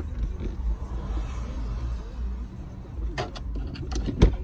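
Hands pressing a flexible plastic moulding trim strip into a car's interior door panel: rubbing and handling noise over a low steady rumble, with a few sharp clicks about three seconds in and a louder tap near the end.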